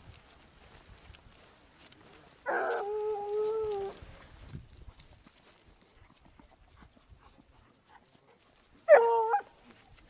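A hunting hound gives voice twice: a long, level bay of about a second and a half, then a short cry near the end that starts high and drops.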